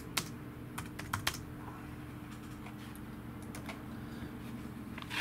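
Irregular keystrokes on a computer keyboard, a dozen or so scattered clicks, over a faint steady hum.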